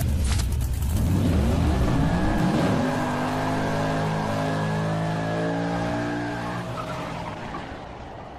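Intro sound effect of a car engine revving with tyres squealing in a burnout. The engine pitch climbs over the first few seconds, holds steady, then fades away near the end.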